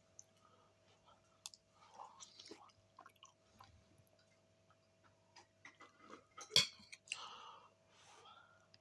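A person chewing and eating pasta bake close to the microphone, with soft wet mouth noises and small clicks. A sharp click about six and a half seconds in is the loudest sound.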